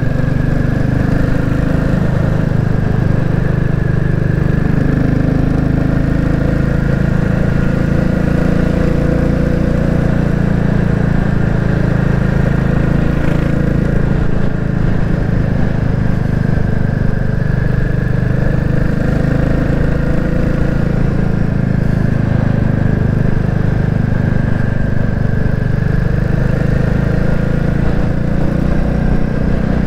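Royal Enfield Classic 350's single-cylinder engine running steadily at cruising speed, heard from on the bike.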